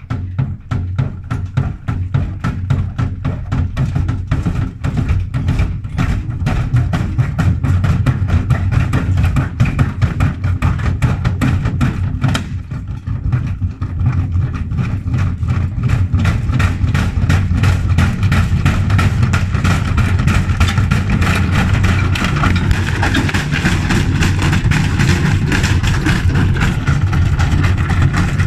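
Gorenje washing machine running in test mode with an unbalanced load: a steady motor hum under rapid, continuous knocking and banging of the shaking machine. It dips briefly near the middle, then runs louder for the second half.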